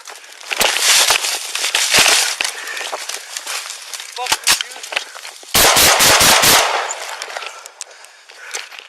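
A rapid volley of about six or seven gunshots within about a second, a little past the middle. Before it come loud bursts of struggle noise.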